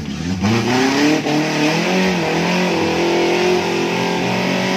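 Small off-road 4x4's engine revving hard under load as it climbs a muddy rutted slope, its pitch rising and falling with the throttle.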